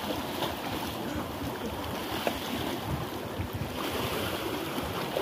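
Sea waves washing and splashing against rocks, with wind on the microphone.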